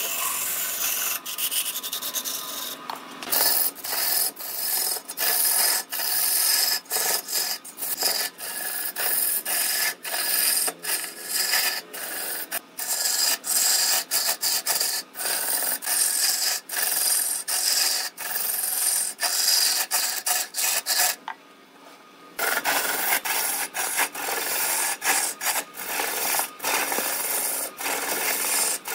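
Turning tool cutting into a large wooden blank spinning on a wood lathe: a continuous scraping hiss of shavings being peeled off, broken by many brief dips as the tool eases off, and a longer lull about 21 seconds in.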